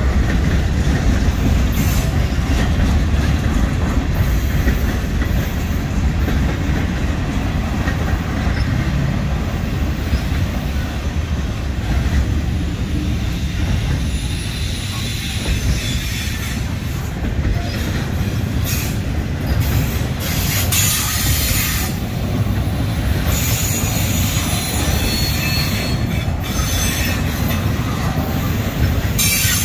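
A freight train's cars rolling past close by, first autoracks and then double-stack container well cars, with a steady low rumble of steel wheels on rail. Bursts of high-pitched wheel squeal come and go in the second half.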